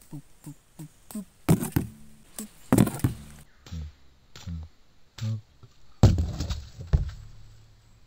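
Dull thuds and knocks of hands patting and pressing loose sandy soil around a pit trap, several in quick pairs, the loudest about six seconds in.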